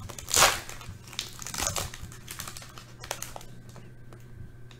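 Foil wrapper of a baseball card pack being torn open and crinkled. The loudest crackle comes about half a second in, with smaller crinkles over the next few seconds.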